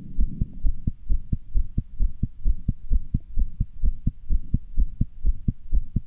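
A human heart beating fast, about two beats a second. Each beat is a low double thud as the heart valves close.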